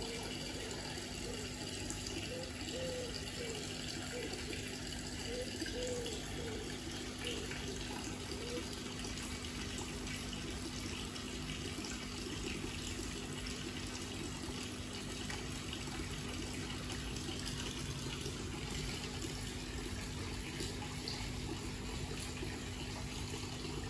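Steady rush of running water into a koi pond, with a steady low hum beneath it.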